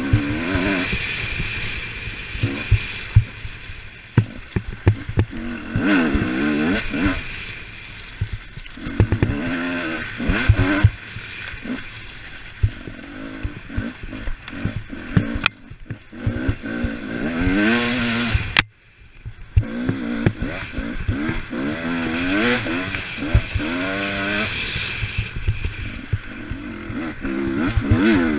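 Off-road dirt bike engine revving up and down over and over as the rider works the throttle and gears, with knocks and clatter from the bike over rough ground. The engine note drops away for a moment about two-thirds through, then picks up again.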